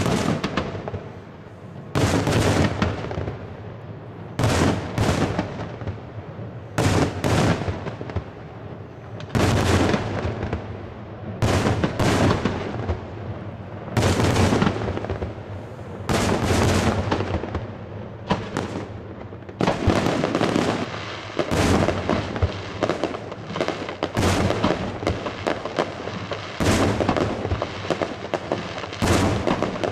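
Daytime aerial fireworks shells bursting in close succession: loud bangs about one to two seconds apart, with smaller pops and crackle between them.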